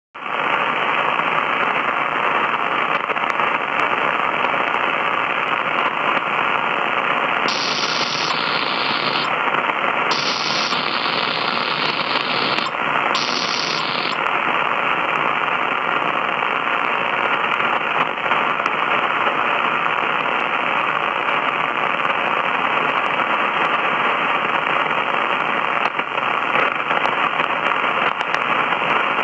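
Grundig Satellit 800 shortwave receiver's speaker hissing with band noise on the 75-metre ham band in lower sideband, with no station heard. A few times in the middle the hiss briefly turns brighter and wider as the receiver's bandwidth filter is switched.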